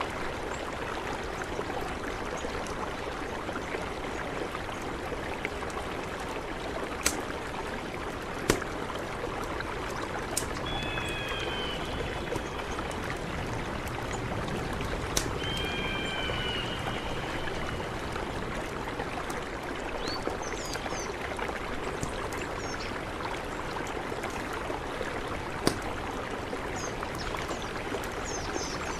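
Mountain river rushing steadily, with a few sharp clicks and short high chirps about ten and fifteen seconds in.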